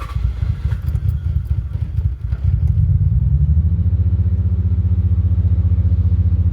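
A car engine running just after being started for the first time in months, uneven at first. About three seconds in it gets louder and settles into a steady, even idle.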